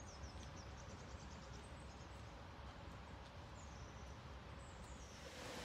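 Quiet woodland ambience: a low steady hiss with faint bird chirps, a quick run of them near the start and another short call about four seconds in.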